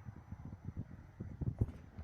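Irregular footsteps, low thumps and knocks, with a cluster of heavier ones about a second and a half in.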